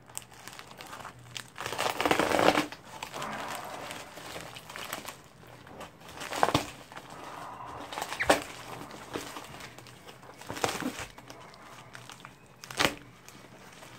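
A USPS Priority Mail envelope being handled and slit open with a knife: crinkling and rustling, louder for a moment about two seconds in, with several short sharp snaps as the material tears and gives.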